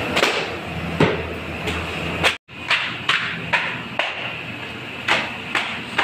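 Repeated sharp slaps and knocks, about one or two a second, as hands pat and slap thin stretched pastry dough down onto a worktable. A low steady hum sounds underneath until a brief dropout about two and a half seconds in.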